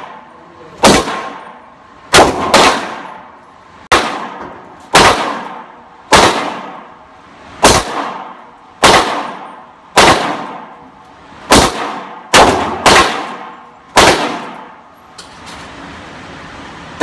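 A string of about fourteen gunshots at roughly one a second, some in quick pairs, each with a short ringing tail.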